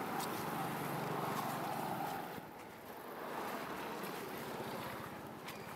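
Steady outdoor background noise, with a faint low hum during the first two seconds.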